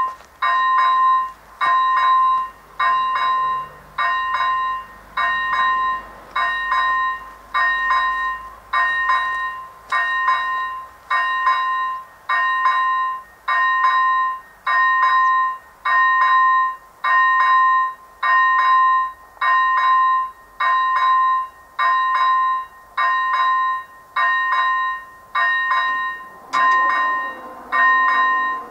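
Electronic warning bell of an AŽD 97 level-crossing signal ringing a steady electronic ding a little faster than once a second, warning of an approaching train. Near the end a motor whine joins as the barrier booms are lowered.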